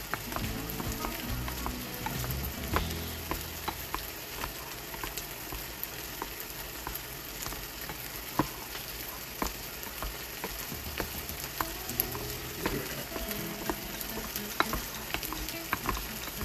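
Steady sizzle of meat frying in a pan, with scattered sharp clicks and taps throughout.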